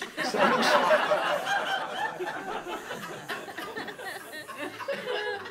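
A live audience laughing. The laughter is loudest in the first couple of seconds, then tapers off.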